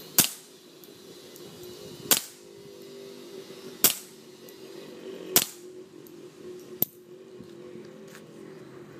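Four suppressed .22 LR shots from a Kimber Target 1911, about one every one and a half to two seconds, fired through a 7-inch K-baffle suppressor run dry with standard-velocity ammunition. Each is a sharp, short crack. A fainter, sharper crack follows about seven seconds in.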